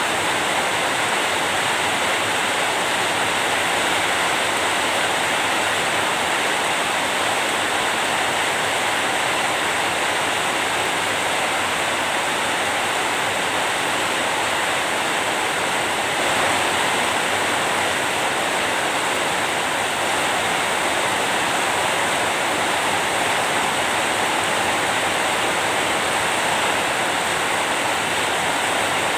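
Steady rain, an even unbroken hiss with no separate drops, thunder or other events standing out.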